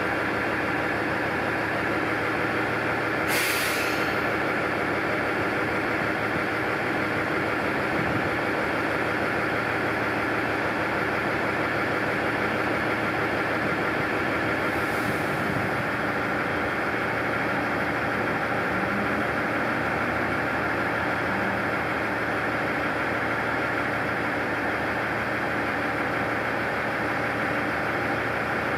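Noto Railway NT200 diesel railcar idling at a standstill with a steady engine hum. A short hiss of released air comes about three seconds in, and a fainter one about halfway through.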